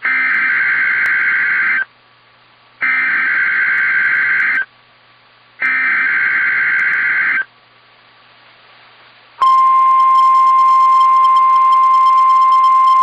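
NOAA Weather Radio emergency alert signal for a Required Weekly Test, heard over a radio: three short bursts of warbling digital SAME header data, each under two seconds with a second's gap between them. About nine seconds in, the steady 1050 Hz warning alarm tone starts and holds.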